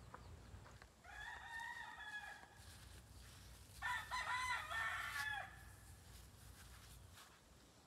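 Rooster crowing twice: one crow about a second in and a louder one about four seconds in.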